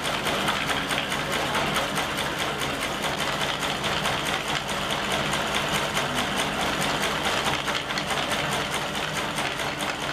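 Industrial sewing machine running at a steady speed as material is fed under the needle: a rapid, even mechanical clatter of many strokes a second.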